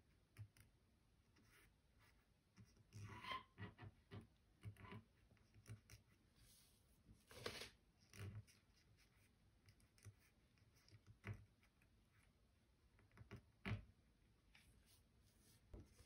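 Faint scratching and light tapping of an ink-loaded twig drawn across paper in short, irregular strokes, with near silence between them.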